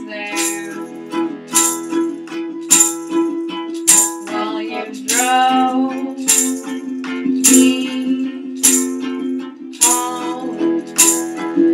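Live acoustic folk song: held accordion chords under a singing voice, with sharp rhythmic strikes on a steady beat from strummed strings and percussion.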